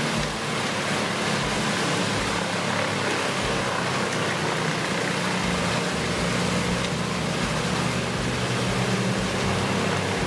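A large machine's engine running steadily under load, a constant low hum beneath a loud, even rushing noise.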